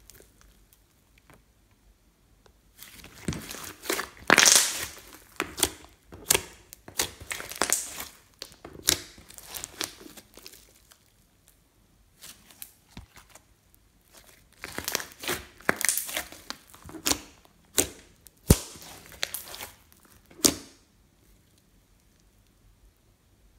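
Thick slime with eyeshadow mixed in being stretched and squeezed by hand, making sticky crackling and snapping sounds in two runs of several seconds each, with a short lull between them.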